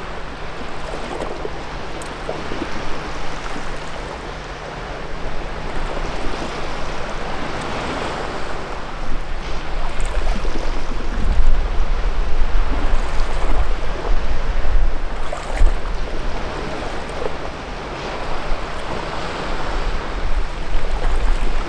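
Sea waves washing against a rocky shore, a steady surging hiss that swells and ebbs, with wind rumbling on the microphone from about halfway through.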